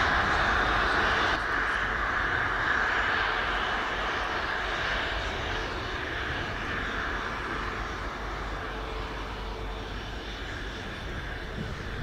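Aero L-159 Alca light combat jets taxiing, their Honeywell F124 turbofans running at low power as a steady jet hiss and rumble. The sound gradually gets quieter, with a small sudden drop about a second and a half in.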